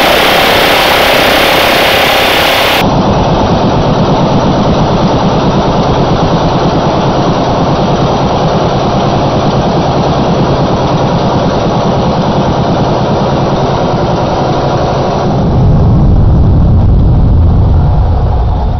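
Minigun, an electrically driven rotary-barrel machine gun, firing a long continuous burst: shots so fast they merge into one loud buzzing stream. About three-quarters of the way through the sound turns deeper and heavier before it begins to die away at the end.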